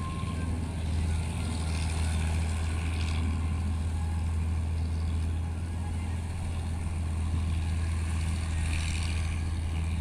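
Combine harvester running steadily during wheat harvesting, a constant low engine drone with a hiss of machinery above it.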